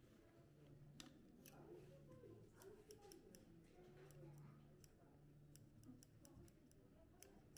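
Near silence: faint room tone with a low hum and scattered faint clicks.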